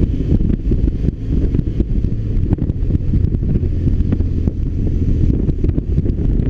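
Wind buffeting on the microphone over the BMW R1200RT's boxer-twin engine running steadily as the motorcycle is ridden, with rapid gusty flutter throughout.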